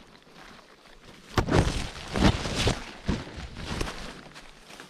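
Footsteps on the forest floor: a run of irregular scuffing steps starting about a second and a half in.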